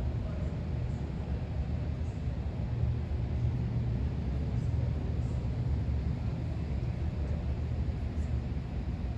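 Kubota KX033-4 compact excavator's diesel engine running at a steady speed, a constant low hum.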